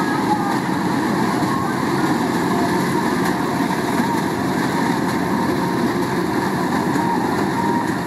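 Kubota DC-105X combine harvester running steadily under load as it cuts rice: its diesel engine and the header and threshing machinery together make one dense, even mechanical noise.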